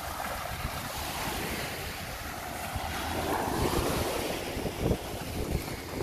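Small sea waves breaking and washing up over sand, the wash swelling about halfway through, with wind buffeting the microphone in short gusts near the end.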